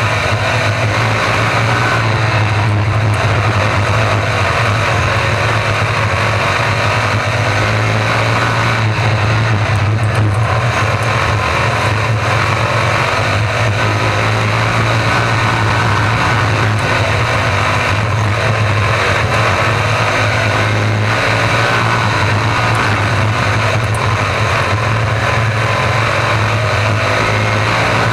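RaceSaver sprint cars' 305 small-block V8 engines running flat out in a dirt-track race. The engine notes rise and fall again and again as the cars lift and get back on the throttle through the turns.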